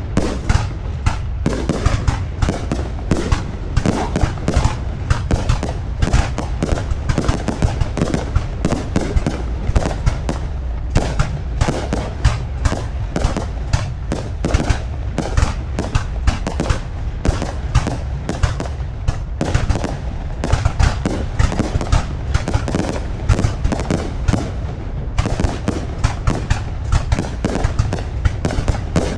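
Fireworks display: a dense, continuous barrage of sharp bangs and crackles, many a second, over a steady low rumble.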